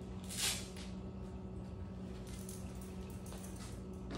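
Steady low hum of a quiet room, with a brief rustle about half a second in and a few faint light clicks later, as a puppy's nylon harness is taken off and dropped.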